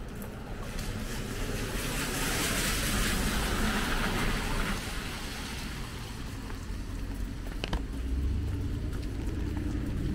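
A car passing on a wet road, its tyres hissing: the hiss swells about two seconds in and fades by about five seconds, over a steady low rumble. A sharp click comes near the end.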